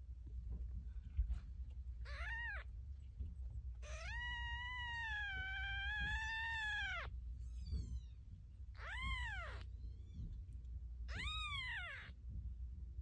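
Young Persian kittens mewing: four high-pitched mews, a short one, then one long drawn-out mew of about three seconds, then two more short ones.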